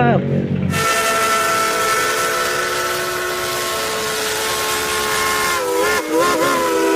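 Steam locomotive whistle blowing one long chord of several tones over a loud hiss of steam, which begins about a second in. Near the end its pitch wavers before it cuts off.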